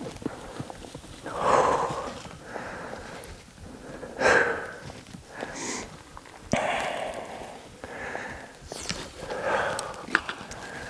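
A person breathing hard: four loud, noisy breaths about every two and a half seconds, with a couple of sharp clicks between them.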